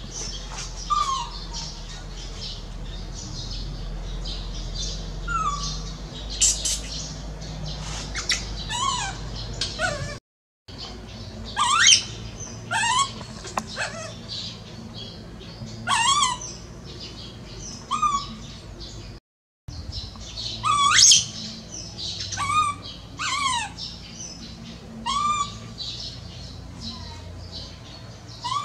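Baby macaque crying: a run of short, shrill, high-pitched squeals, one every second or two.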